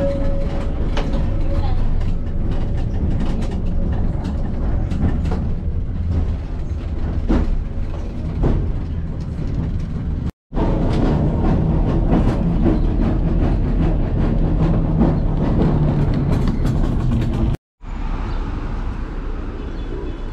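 A nostalgic electric tram running on its rails, heard from inside the car: a steady rumble with frequent clicks and clatter from the wheels and car body. The sound drops out briefly twice, and for the last couple of seconds it gives way to quieter street ambience.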